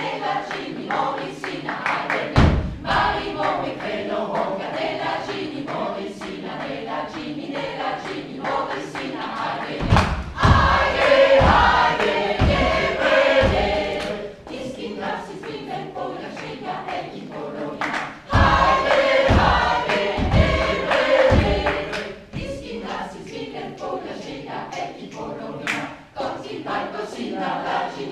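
A choir singing, swelling louder in two passages about ten and eighteen seconds in, where a low thump comes in at a steady beat, a little more than once a second.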